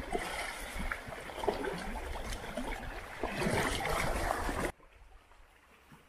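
Small lake waves lapping and splashing against shoreline rocks, irregular sloshing with wind rumbling on the microphone. It drops abruptly to quiet ambience near the end.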